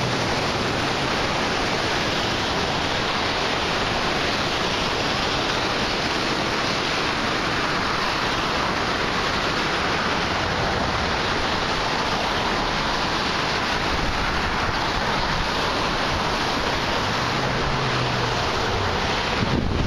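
Floodwater rushing steadily through a full drainage spillway, an even, unbroken wash of water noise.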